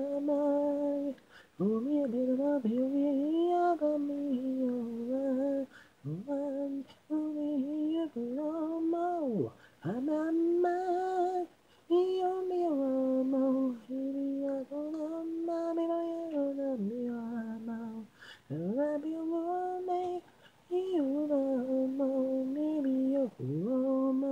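Isolated lead vocal of a Japanese pop song, a male voice singing a cappella with no accompaniment. The phrases are smooth, with held notes and upward scoops into phrases, and short pauses between them.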